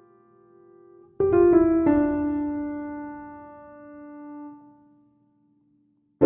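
Background piano music: a chord struck about a second in rings and fades to silence, then another chord is struck at the end.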